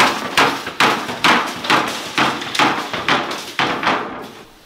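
Drywall being smashed with a swung long wooden-handled tool: about nine hard blows, roughly two a second, each a crunching crack of breaking gypsum board, stopping shortly before the end.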